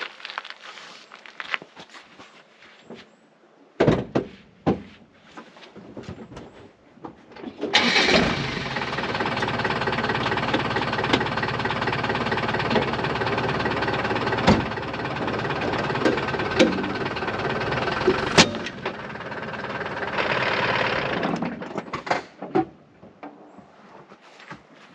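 Land Rover engine starting about eight seconds in, running steadily for about ten seconds, then cutting off suddenly. A sharp knock comes about four seconds in, and a shorter burst of noise follows near 21 seconds.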